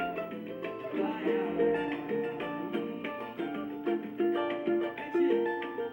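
Cavaquinho plucking a quick melodic line of single notes in a samba-pagode style.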